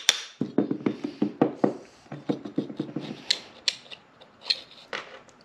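Rusted small DC motor from a linear actuator being worked apart by hand, its metal end cap and armature grating and clicking against the can. There is a quick run of rough scraping clicks for about two and a half seconds, then a few scattered clicks.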